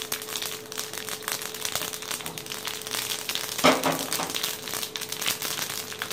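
Mustard seeds and dried red chillies sputtering in hot oil in a kadai during tempering, a rapid irregular crackle of small pops. A single louder knock comes a little past halfway.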